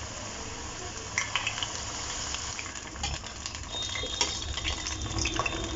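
Battered cabbage and mushroom pieces deep-frying in oil in a stainless steel kadai: a steady sizzle, with a few light clicks of a metal slotted spoon against the pan.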